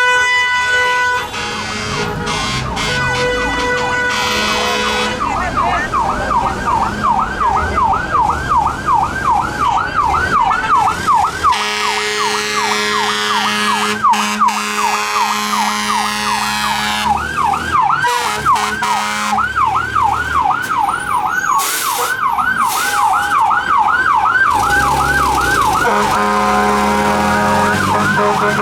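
Fire apparatus sirens on a call: a fast yelp sweeping up and down several times a second for most of the stretch, with steady siren tones before and after it, over running truck engines.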